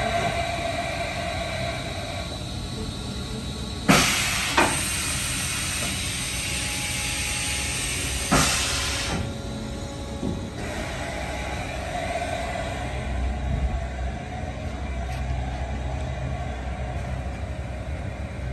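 Haas EC-1600 horizontal machining center running with a steady hum and whine while its side-mount tool changer works at the spindle. There is a sharp clunk with a burst of air hiss about four seconds in, a lighter clunk just after, and another clunk and hiss about eight seconds in.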